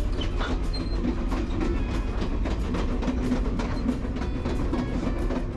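Moving passenger train heard from on board: a steady low rumble of the rail car, with rattling and clacking from the wheels and car body.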